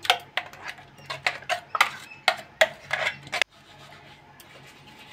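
A stainless-steel mixer jar and spoon knocking and scraping against a steel bowl as thick ground-rice paste is emptied out: a quick run of sharp knocks, about three or four a second, that stops abruptly about three and a half seconds in.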